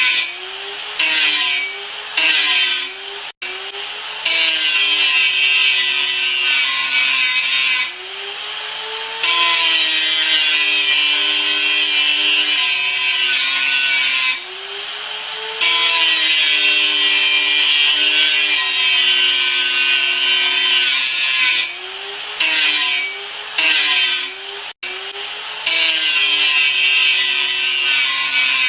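Angle grinder running, with long spells of loud grinding hiss broken several times by short drops in level. In each drop the motor's whine dips in pitch and then climbs back up.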